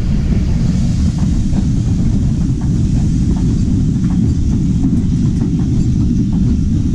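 Passenger train running along the line, heard at an open carriage window: a steady low rumble of wheels on rails with scattered faint clicks.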